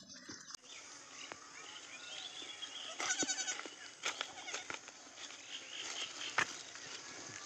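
Goat bleating: one short, quavering cry about three seconds in, with scattered sharp clicks around it.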